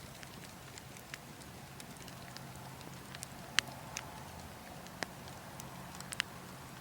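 Burning logs crackling: irregular sharp pops and snaps, the loudest about three and a half seconds in, over a steady low wind rumble.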